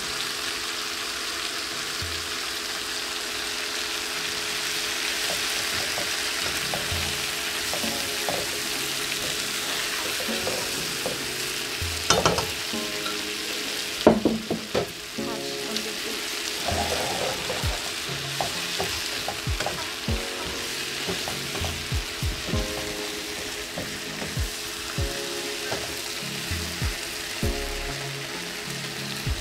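Marinated shrimp sizzling in hot annatto oil in a nonstick frying pan, a steady frying hiss. A couple of sharp knocks come about 12 and 14 seconds in, then a run of light taps and scrapes as the shrimp are turned in the pan.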